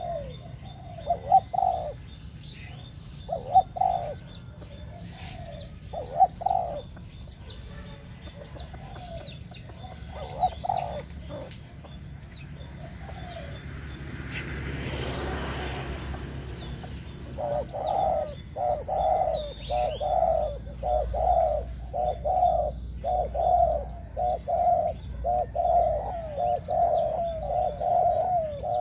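Spotted dove cooing in its cage: a few spaced coos in the first ten seconds, then from a little past the middle a fast, steady run of coos, about two a second. A soft rushing swell rises and fades midway, and faint chirps of small birds sound in the background.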